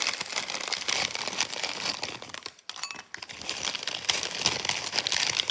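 Crinkly plastic snack packaging rustling and crackling as it is handled, with a short pause about two and a half seconds in.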